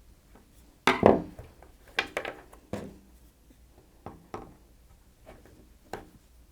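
Plastic catches around the top of a Dyson V6 main filter clicking open as they are prised with a flat-blade screwdriver: a few sharp clicks, the loudest about a second in, two more within the next two seconds, then fainter ticks.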